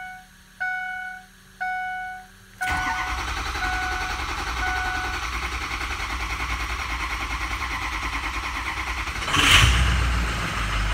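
A dashboard chime rings three times about a second apart. Then the Ford 6.0 Powerstroke V8 turbo-diesel cranks with an even pulsing for about six seconds, catches with a loud surge near the end and settles into running. It takes a little long to start up, which the mechanic puts down to a home-made oil bypass system that has no one-way valve.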